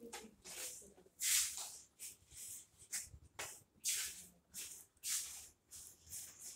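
People walking on a tiled floor: a run of soft, swishing scuffs, roughly one to two a second and uneven.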